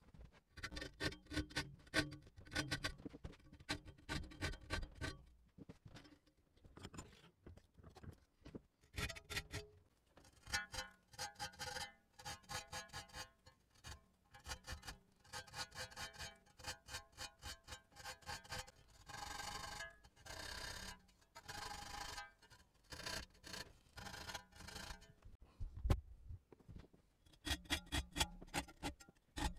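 A fine flat file rasping across the teeth of a Silky pruning saw in quick short strokes, with brief pauses, as the teeth are sharpened. A faint ringing tone carries under the strokes.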